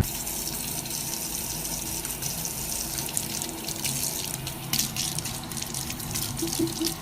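Steady rush of running water, like a tap running.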